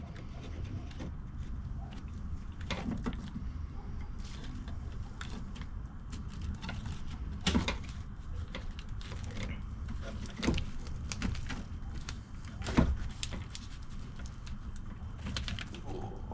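Scattered clicks and knocks of hand tools and parts being handled while a fuel pump assembly is being worked free, over a low steady hum; the sharpest knock comes near the end.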